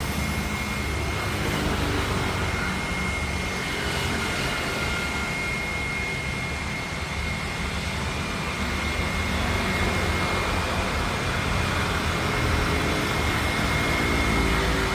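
Jet airliner's engines running: a steady low rumble with a thin high whine held throughout, growing slightly louder toward the end.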